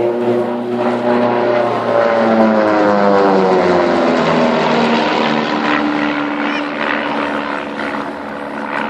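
Propeller aircraft flying past with its engine running steadily; the engine note drops in pitch as it passes, about three seconds in.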